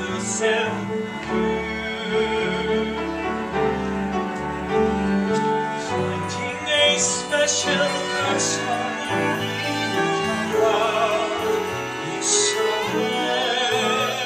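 Instrumental stage-musical music with strings playing.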